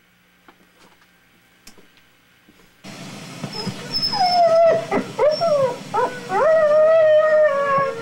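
Canine howling: several overlapping howls that swoop up and level off, with one long held howl, starting suddenly about three seconds in after near silence broken by a few faint clicks.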